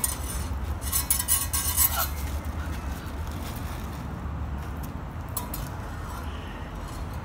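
Thin steel fencing blades clinking and ringing against each other in a quick run of contacts about a second in, then a lighter touch later, over a steady low rumble.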